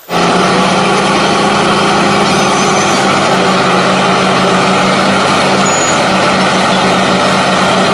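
Backhoe loader's diesel engine running steadily while its hydraulic backhoe arm digs, a constant loud hum with a strong steady low tone.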